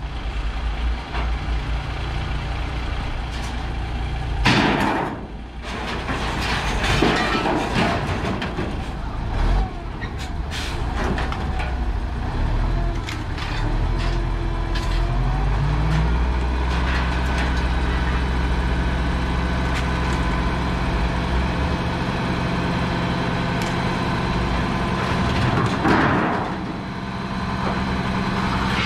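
A motor vehicle engine running steadily, its note shifting about sixteen seconds in. Two louder rushing bursts come through, one a few seconds in and one near the end.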